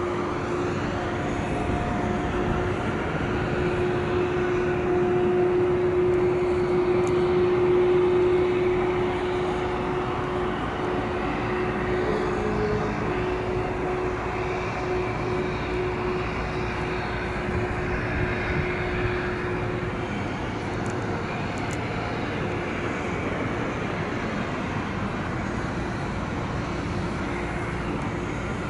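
Twin turboprop engines of a De Havilland Canada Dash 8-200 running as the airliner moves on the ground, a steady propeller hum over engine noise, slightly louder about eight seconds in.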